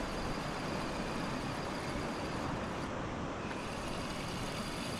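Wind buffeting the microphone out on open water: a steady rushing noise with an uneven low rumble and no distinct events.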